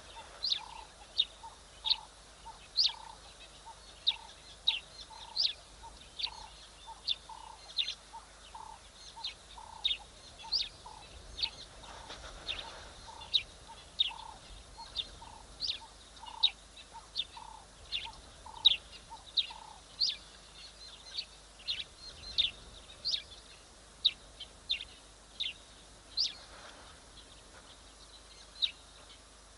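Short, sharp high-pitched animal calls, each falling in pitch, repeated about one and a half times a second, with a lower note paired with them until about twenty seconds in.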